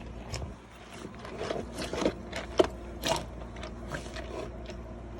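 Doberman puppy eating, with irregular wet smacking and clicking mouth sounds.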